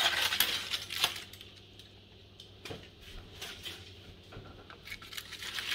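Loose aluminium foil being pulled off a roasting pan, crinkling for about the first second, then light metallic clinks and taps.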